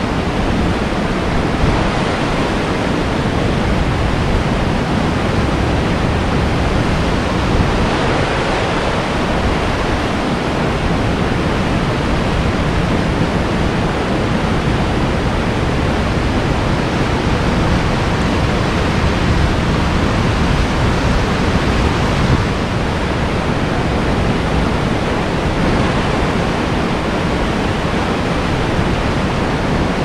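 Kern River flowing, a steady, even rush of moving water with no breaks.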